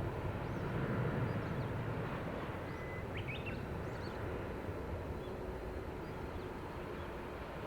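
Boeing 767-300ER's jet engines rumbling after takeoff, the noise slowly fading as the airliner climbs away. Birds chirp briefly over it.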